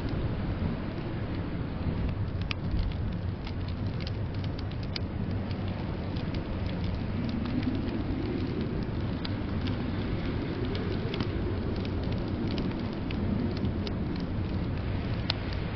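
Fireplace crackling with sparse, sharp pops over a steady low rush of blizzard wind that swells and eases.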